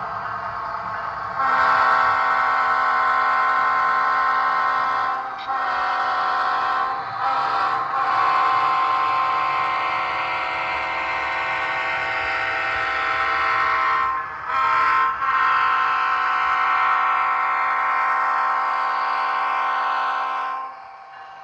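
Air horn of a sound-equipped model diesel locomotive, played through its onboard speaker. It is sounded in several long blasts with a few brief breaks, starting about a second and a half in and stopping just before the end, over a low steady rumble.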